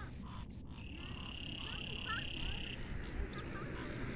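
Frogs calling from a rain-filled pool: a regular high-pitched clicking call about five times a second, joined about a second in by a steady trill that lasts about two seconds, with a few short chirps.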